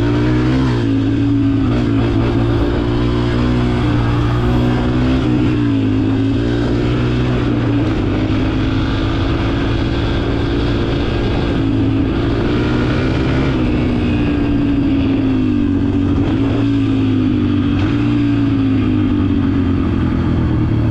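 Yamaha TT-R125 dirt bike's single-cylinder four-stroke engine running steadily, its pitch rising and falling gently with the throttle.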